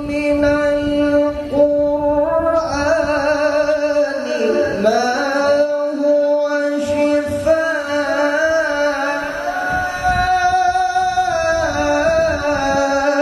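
Male qari reciting the Quran in melodic tilawah style into a microphone, singing long sustained notes decorated with wavering ornaments and glides, with hardly a pause for breath.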